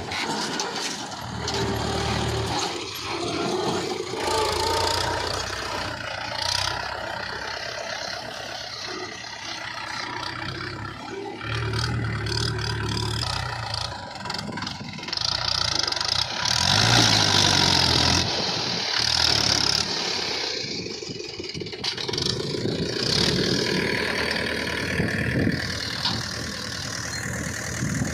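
Diesel engines of a backhoe loader and a tractor running, revving up and down as the machines work, loudest about halfway through.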